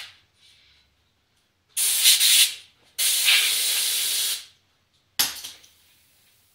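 Compressed air blown in three hissing bursts, the middle one longest at about a second and a half and the last one brief, clearing wood dust out of freshly drilled and countersunk screw holes.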